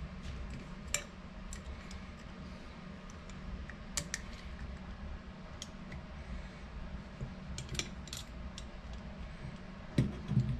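Scattered light metallic clicks and taps of a hex key and the K24 turbocharger's cast housings being handled, over a low steady hum, with one heavier knock near the end.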